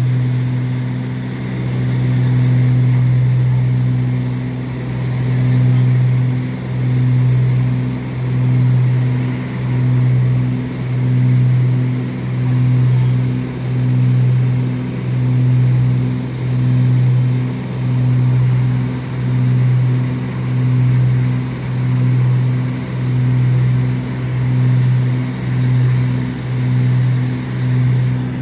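Cabin drone of a twin-engine propeller aircraft in flight: a loud, steady low hum that swells and fades in a regular beat, slow over the first few seconds and then about once every 1.3 seconds. The beat is the sign of the two engines' propellers turning at slightly different speeds.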